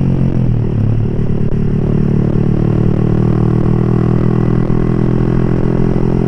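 Yamaha R15 v3's single-cylinder engine running through an open aftermarket exhaust while riding. Its pitch dips briefly about half a second in, then holds steady.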